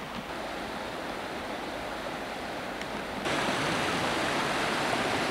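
Rushing mountain brook, a steady wash of water that gets clearly louder about three seconds in.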